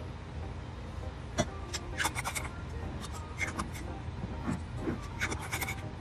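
Metal screw caps clicking and clinking against small glass bottles as they are set on and twisted closed, a scattered run of light taps, some with a brief ring, over a steady low hum.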